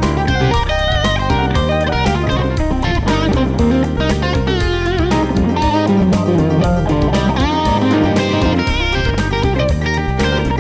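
Electric guitar playing a solo of quick single-note lines with vibrato over a backing track with a bass line.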